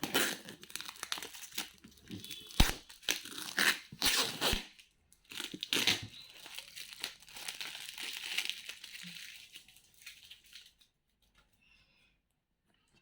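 Packaging being unwrapped by hand: crinkling, crumpling and tearing with a few sharp clicks, dying away a couple of seconds before the end.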